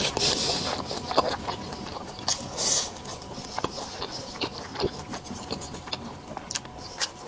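Close-miked eating sounds: irregular wet clicks and smacks of chewing, with a short hissy burst about two and a half seconds in, over a faint steady hum.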